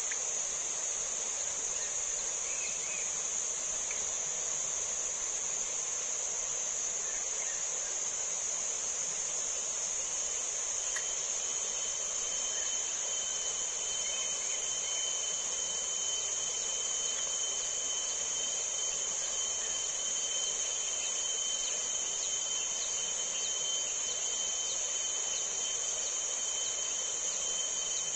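Steady high-pitched chorus of insects droning without a break, with a second, lower steady insect tone joining about ten seconds in.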